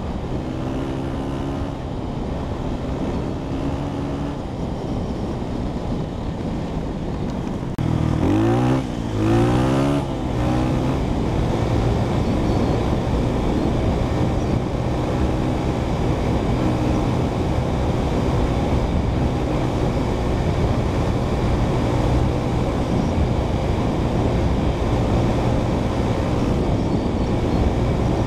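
Four-stroke single-cylinder dirt bike engine running under way. About eight seconds in it gets louder and the revs rise and fall several times, then it settles into a steady run.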